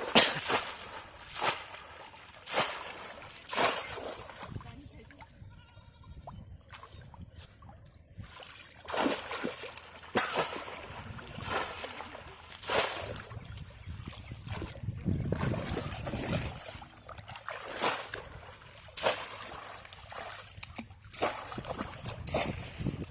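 Repeated splashing in shallow water as a bamboo polo cone trap is thrust down again and again, with short splashes about a second apart at first, then longer sloshing surges.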